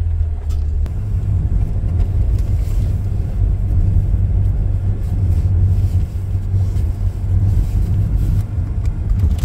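Steady low rumble of a car driving along a road, as heard inside the cabin: engine and tyre noise.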